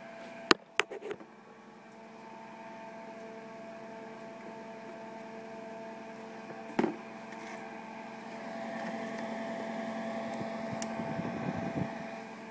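Electric fan running with a steady hum, with a few sharp clicks and knocks near the start and once midway.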